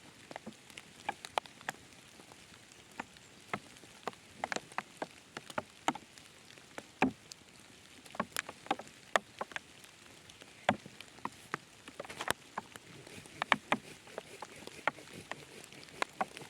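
Irregular sharp taps and clicks, a few a second and varying in loudness, over a faint steady hiss.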